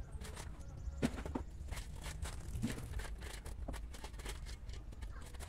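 Irregular crunches and knocks of manual groundwork on soil and gravel, a stroke roughly every half second with uneven spacing, over a steady low rumble.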